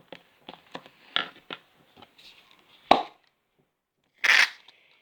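Small clicks and taps from handling sticky homemade slime and its bowl, with a sharp knock just before the three-second mark and a short rushing noise near the end.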